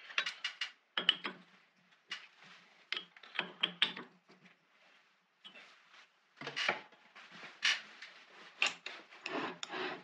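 1921 Dalton B4 metal lathe drilling a 1/8-inch pilot hole through a steel bolt with a drill in the tailstock chuck. Irregular clicks and short scraping noises come in clusters.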